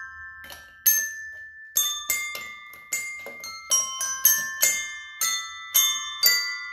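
Colourful desk bells, a set of tuned tap bells, struck one after another at different pitches. There are about a dozen strikes, roughly two a second, and each bright note rings on after it is struck.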